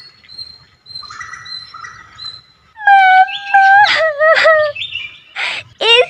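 A cartoon chick crying in a child's voice: a drawn-out wail in a few held notes starting about three seconds in, then a short sob just before she speaks.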